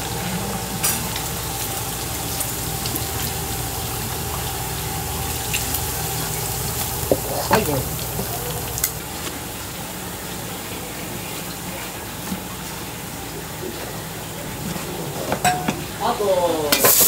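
Battered chicken pieces (karaage) frying in hot oil in a wok, a steady sizzle with sharp clinks of a metal strainer against the wok. The sizzle gets louder and brighter near the end.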